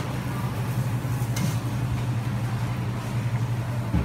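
Steady low mechanical hum of kitchen equipment beside a griddle, with one faint metallic click about one and a half seconds in.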